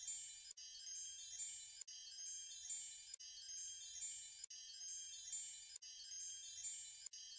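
High, tinkling chime tones like wind chimes, running as a short loop that repeats about every 1.3 seconds with a brief break at each repeat.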